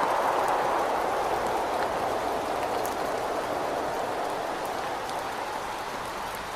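Rain and wind against a window: a steady hiss of rain with a few sharp drop ticks, while the wind slowly dies down.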